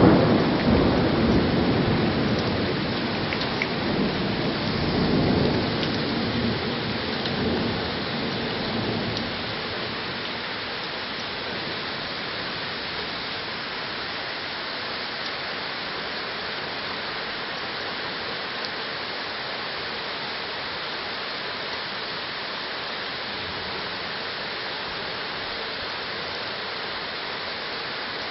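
Thunder rumbling and rolling away after a close strike, swelling a couple of times before dying out about nine seconds in. Under it and then alone, the steady hiss of heavy rain.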